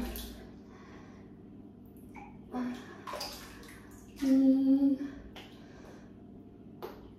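Thick bath slime sloshing and squelching as a person turns over and moves through a tub full of it. A short, steady hum-like tone about four seconds in is the loudest sound.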